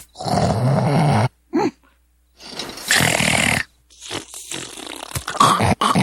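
Loud snoring in separate snores: a long snore in the first second, a short snort, a brief pause, then more snores about a second long each.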